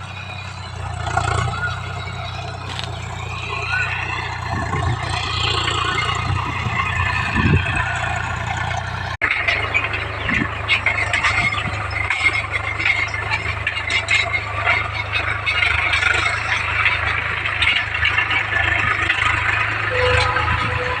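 Tractor engine running steadily. From about nine seconds in, a dense rattling clatter sits over it.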